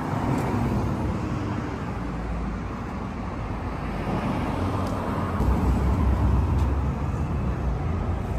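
Road traffic rumbling along the street, swelling louder a little past halfway as a vehicle draws near.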